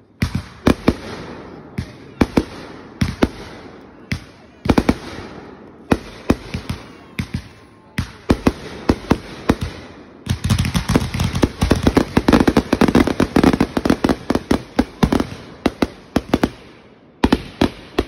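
Firework finale: aerial shells bursting in a quick, irregular string of loud bangs with crackling between them. The bangs thicken into a dense barrage from about ten seconds in until about fifteen seconds, then thin out again.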